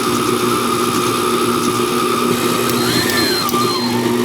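Vevor 600-watt tilt-head stand mixer's motor running steadily while its scraper beater creams butter and sugar, a constant hum with a higher whine that briefly rises and falls in pitch about three seconds in.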